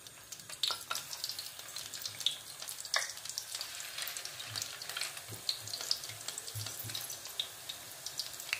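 Sticks of corn-flour dough (kokoro) deep-frying in hot oil in a pan: a steady sizzle with scattered crackles and pops.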